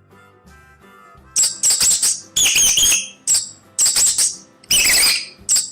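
Mice squeaking: a quick run of shrill, wavering squeaks that starts about a second and a half in, over soft background music.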